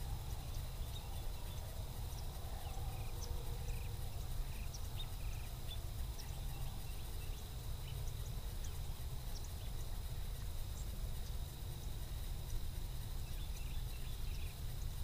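Fishing boat being eased along on its electric trolling motor: a steady low rumble with a faint, steady high whine, and scattered light ticks.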